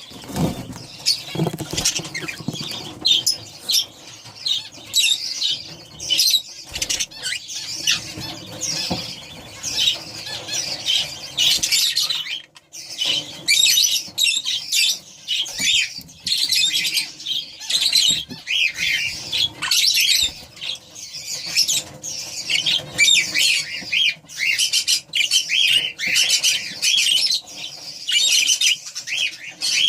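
Budgerigars chattering: a continuous stream of quick, overlapping chirps and squawks.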